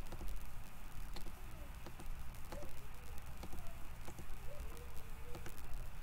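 Computer mouse clicking several times at an irregular pace over a steady low hum.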